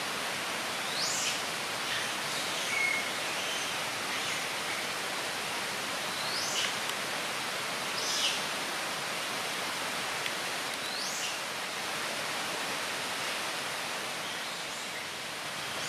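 Steady outdoor hiss of tropical ambience, with a bird's short, high, upward-sweeping calls repeated every few seconds.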